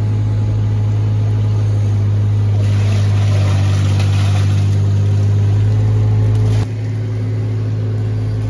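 Mini digger's diesel engine running steadily with its hydraulics working the bucket as it digs sludge out of a pit. A hissing rush joins the engine about three seconds in and cuts off suddenly near the end, where the engine sound drops a little.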